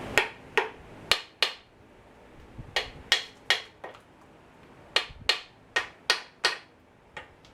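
Hammer blows on a Chevy 216's bellhousing, knocking it loose from its locating dowel pins. The blows are sharp, ringing strikes in runs of four or five, about three a second, with short pauses between the runs.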